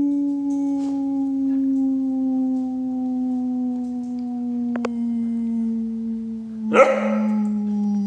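A man howling like a dog: one long held note that sinks slowly in pitch. About seven seconds in, the Great Dane puppy lets out a short, sharp bark over it.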